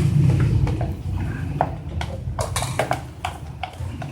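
A utensil stirring thick, sticky homemade slime in a container. It gives irregular clicks and scrapes against the container, thickest in the second half.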